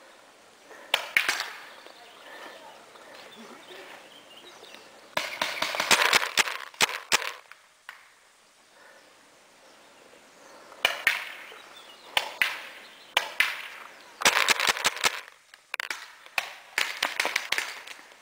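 Paintball markers firing in quick volleys of sharp pops, several shots to a burst, with the longest rapid run about five to seven seconds in and more bursts in the second half.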